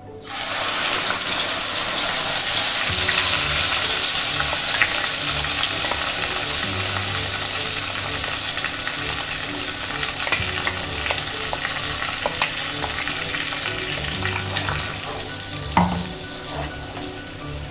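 Onion-and-tomato purée poured into hot oil in a kadhai: a loud sizzle starts suddenly and slowly dies down, while a wooden spatula stirs and scrapes the pan with small scattered clicks.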